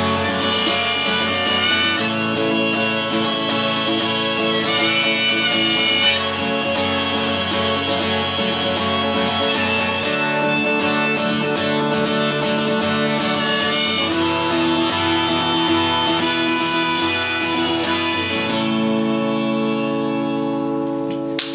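Instrumental outro of a solo folk song: strummed acoustic guitar with a harmonica carrying the melody. About two seconds before the end, a final chord rings out and holds.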